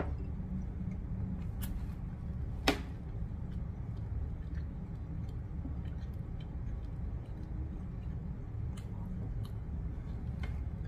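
A person chewing food close to the microphone, with several sharp clicks, the loudest a little under three seconds in, over a steady low room hum.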